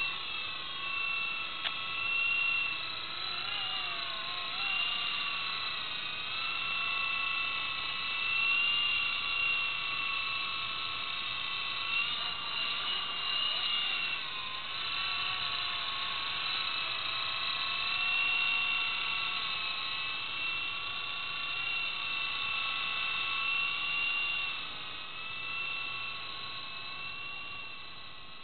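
E-flite Blade 120 SR fixed-pitch electric RC helicopter in flight: a high motor-and-rotor whine that drifts up and down in pitch, getting fainter near the end.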